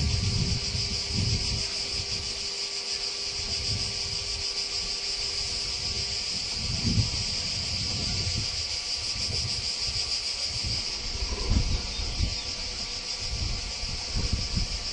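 A steady, high-pitched chorus of insects shrilling without a break, with gusts of wind rumbling on the microphone now and then.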